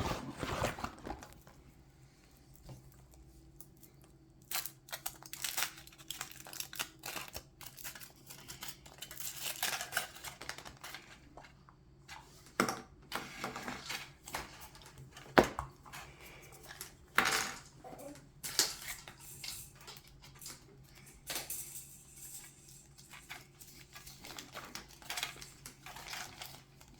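A Kinder Surprise egg and its contents being handled and opened: irregular clicks and taps of the plastic capsule and the small toy pieces, with short rustles of the wrapper in between.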